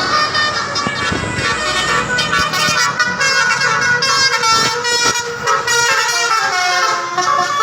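Telolet basuri multi-tone musical horn playing a quick melody of changing notes, with vehicle road noise beneath it for the first couple of seconds.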